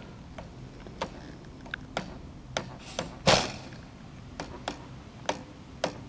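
A string of light, sharp clicks about every half second, with one much louder rushing burst about three seconds in.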